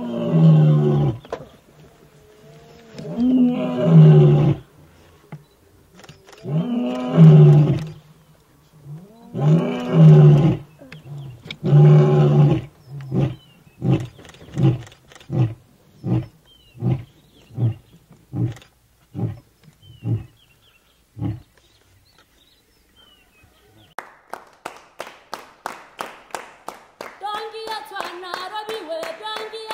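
A lion roaring a full bout: five long, loud moaning roars, then a dozen or so short grunts that fade out about 21 seconds in. Near the end, even hand claps start, then a traditional Tswana choral song.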